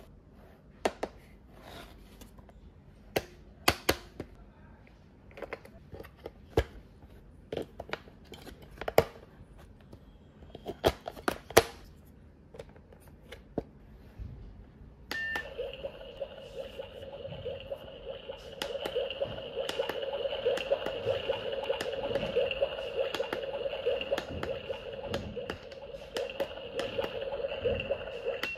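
Plastic clicks and taps from a toy kitchen playset being handled, then about halfway through a short electronic beep as its toy cooktop is switched on, followed by a steady electronic cooking sound effect from the toy's small speaker.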